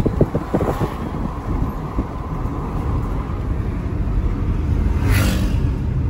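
A car being driven along a street: steady engine and road rumble, with a brief rush of noise about five seconds in.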